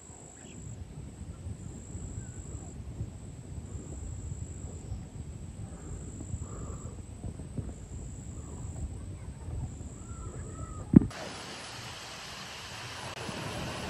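Outdoor rural ambience: a fluctuating low rumble with faint scattered chirps, a sharp thump about eleven seconds in, then a steady rushing hiss.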